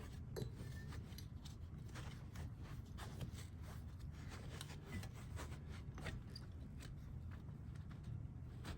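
Foam firming pad being pushed and pulled through under the steel bands of a seat's spring unit: faint rubbing and rustling with many scattered light clicks.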